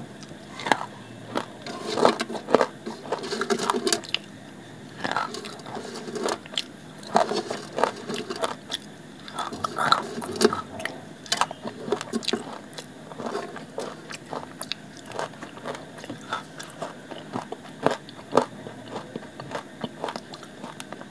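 Hard dried clay chunks being bitten and crunched between the teeth, then chewed. The sharp crunches come thick and fast at first and thin out to scattered crackles toward the end.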